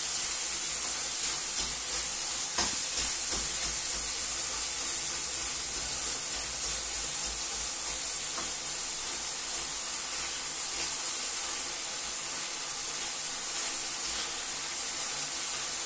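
Beef stir-frying in a pan: a steady, high sizzle, with a few faint clicks.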